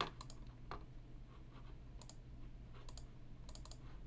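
Computer mouse clicking: a handful of faint, irregularly spaced clicks over a steady low hum.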